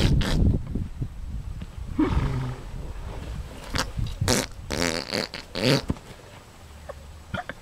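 A horse passing gas in several short, rippling blasts as it rolls on its back in sand, with the noise of its body rubbing and thudding in the sand near the start.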